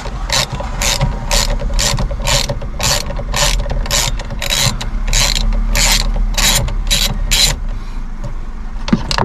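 Ratchet wrench with a 12 mm multi-spline bit undoing the steering wheel's centre bolt. Each stroke gives a burst of pawl clicks, about two strokes a second, and the strokes stop about seven and a half seconds in.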